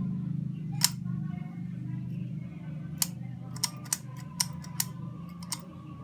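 Antique brass-lever toggle light switch being flipped back and forth: a series of sharp clicks, one about a second in and about six more bunched in the second half, over a steady low hum.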